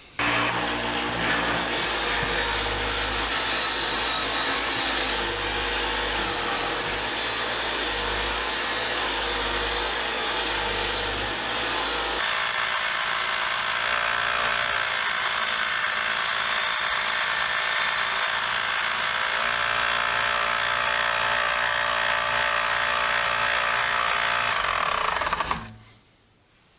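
Power tool motor running steadily with rubbing, as wrenches are worked against an abrasive wheel or belt. About halfway through the low hum drops away and the tone changes, and the machine stops shortly before the end.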